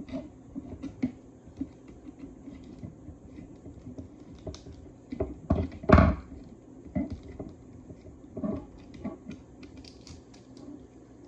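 Old tear-off spuds being unscrewed from a helmet visor with a Phillips screwdriver: irregular light clicks and taps of the screwdriver and the small plastic and metal parts. A louder knock comes about six seconds in.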